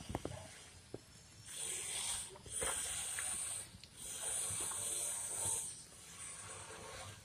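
Hands scrubbing the soapy, wet coat of a Cavalier King Charles spaniel: a few light clicks, then two long swishing rubs of about two seconds each.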